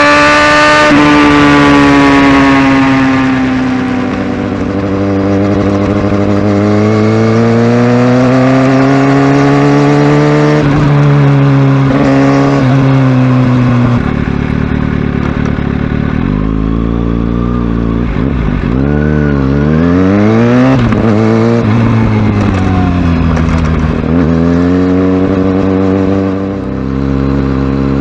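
Kawasaki Ninja ZX-6R's inline-four engine under way, its pitch falling from high revs at the start, then rising and falling repeatedly, with quicker up-and-down swings in the second half.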